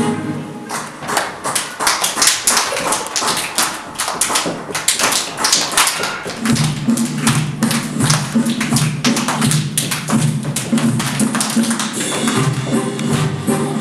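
A group of young children clapping their hands in time over recorded dance music, the claps sharp and rhythmic from about a second in.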